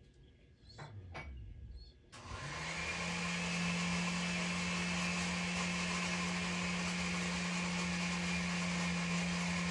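A small electric motor appliance switched on about two seconds in, spinning up and then running steadily with a low hum over a loud even hiss. A few light handling clicks come before it.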